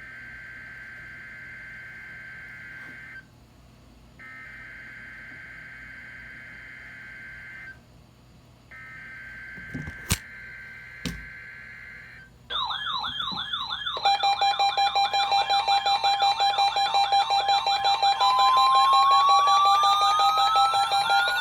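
NOAA Weather Radio SAME header: three buzzy digital data bursts with short gaps, opening the required weekly test. After two clicks, several electronic alarms start about twelve seconds in and sound together: a fast warbling tone, pulsing steady beeps and a slowly rising tone, louder than the data bursts.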